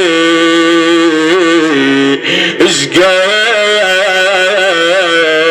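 A man chanting an Iraqi Shia lament for the dead, sustaining long melismatic notes with wavering ornaments over a steady low drone. There is a brief break with a breathy hiss about two seconds in, and then the line resumes.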